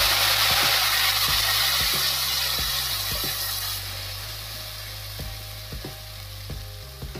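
A wet ground paste sizzling loudly as it hits hot oil tempered with mustard seeds, cumin and bay leaves in a kadhai. The sizzle slowly dies down as the paste is stirred in, with scattered clicks of the spoon against the pan.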